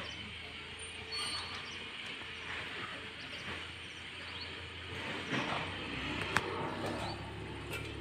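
Steady outdoor background noise with a low hum underneath, a few faint short high chirps, and a sharp click about six seconds in.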